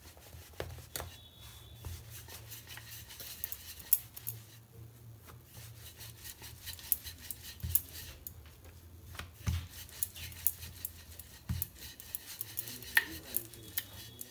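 A wooden rolling pin rolls stuffed paratha dough back and forth on a flour-dusted countertop: repeated soft rubbing with scattered light clicks and taps. A steady low hum sits underneath.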